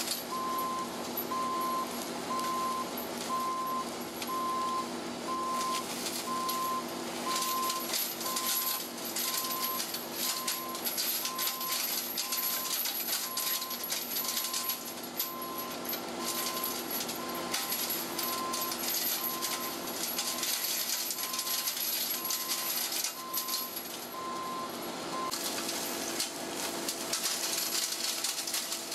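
Cat 309 CR mini excavator's C3.3B diesel running under load while its HMF210 mulcher head spins and chews through brush and dry grass, a constant crackle and rattle of debris. A short warning beep repeats about every second and a quarter, then stops near the end.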